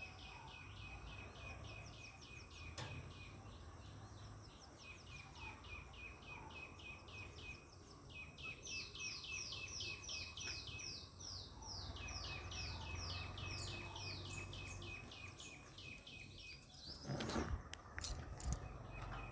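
An animal chirping in a rapid, even series of short falling chirps, about five a second, in two long bouts with a short pause in between. A few loud knocks and a rustle come near the end.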